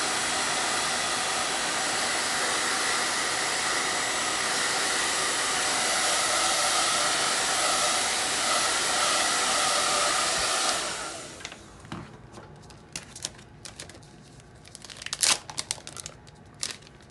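Hand-held hair dryer blowing steadily, drying chalk paste on a wooden board. It is switched off about eleven seconds in and winds down quickly. Scattered small clicks and rustles of handling follow.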